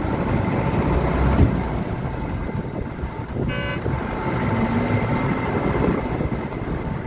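Steady engine and road rumble of a moving vehicle, with one short horn toot about halfway through.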